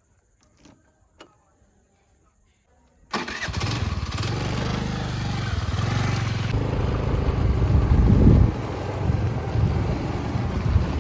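A few faint clicks. About three seconds in, a heavy diesel engine cuts in abruptly and runs steadily, briefly louder about eight seconds in.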